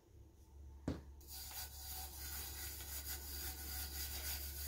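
A single sharp knock about a second in, then a hand rubbing loose glitter onto a tumbler covered in double-sided adhesive, a steady rubbing sound made of repeated strokes.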